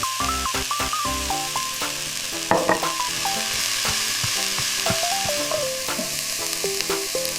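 Food stir-frying in a pan: a steady sizzle with scattered clicks and knocks of stirring, the loudest about two and a half seconds in, under light background music with a plucked melody.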